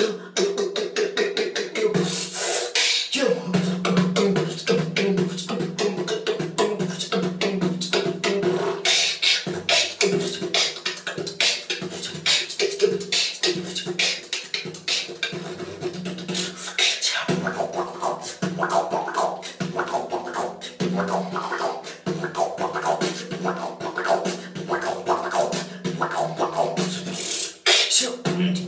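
Human beatboxing: fast, continuous mouth-made percussion clicks and snares over a low note held in the voice that shifts in pitch every second or so.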